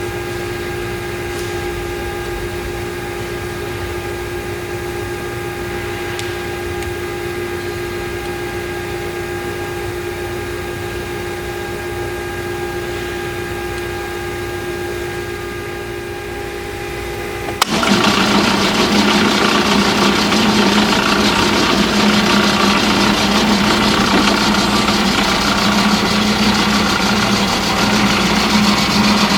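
Powermatic 2800 variable-speed drill press running with a steady hum. About two-thirds of the way through, the sound jumps abruptly to a louder, rougher running sound.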